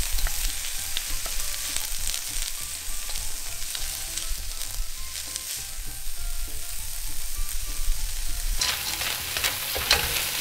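Shredded chicken and frozen mixed vegetables sizzling in a hot cast-iron/steel wok, stirred and scraped with a wooden spatula. The sizzle gets louder for the last couple of seconds.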